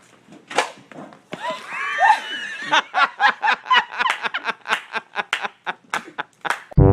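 A person laughing in a quick run of short bursts, about four to five a second, after some higher squealing vocal sounds. Brass music starts right at the end.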